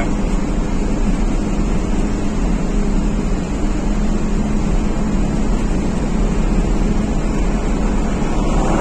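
Steady engine hum and tyre and road noise inside a vehicle's cabin, driving at an even speed.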